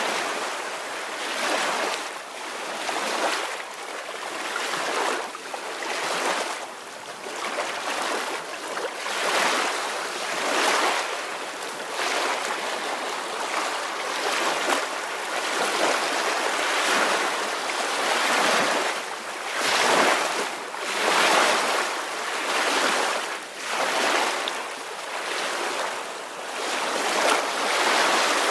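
Ocean waves washing ashore: a continuous hiss of surf that swells and ebbs every second or two.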